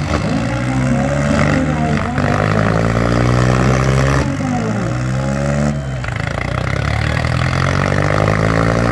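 Two diesel tractor engines, a New Holland 3630 Super and a Swaraj 744 FE, running hard under full load as they pull against each other in a tug-of-war. Their pitch sweeps up and down several times as the engines labour and the revs shift.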